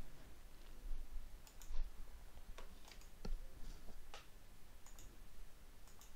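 Faint, scattered clicks of a computer mouse, several single clicks spread out irregularly, the loudest about four seconds in.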